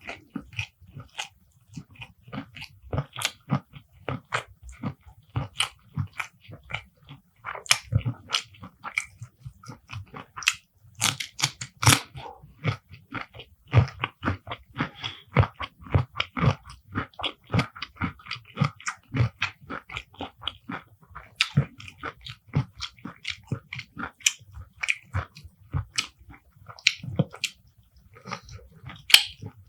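Close-up mouth sounds of a person eating: continuous chewing with many sharp bites and crunches following each other quickly.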